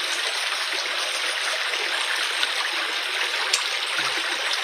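Steady rush of a small creek's flowing water, with one faint click about three and a half seconds in.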